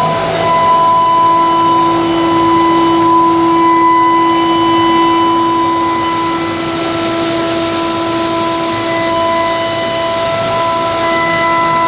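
High-speed 5-axis CNC machining center milling aluminum: the spinning cutter gives a steady, high whistling whine of several tones over a constant hiss. The tones change about half a second in and again around six seconds in as the cut moves.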